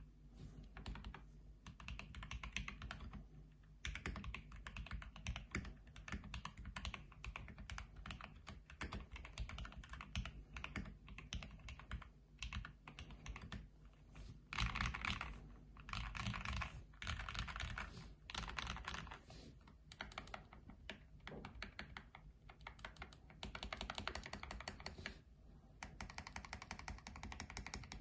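Fast typing on a computer keyboard: rapid keystroke clicks in runs of a few seconds with brief pauses between them, picked up by a phone's microphone.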